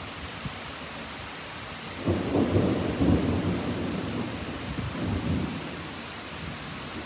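Thunder over steady rain: a sudden deep rumble breaks in about two seconds in, rolls on, swells once more, then fades out.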